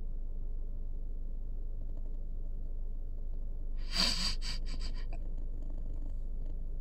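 A woman crying quietly: a sharp sobbing breath or sniff about four seconds in, a few fainter breaths after it, over a steady low hum inside a car.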